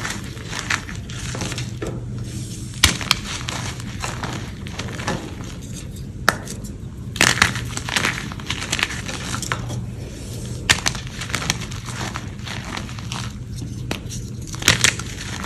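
Hands crushing and crumbling blocks of gym chalk in a tray of chalk crumbs and powder: a steady gritty crunching, with sharp snaps several times as lumps break apart.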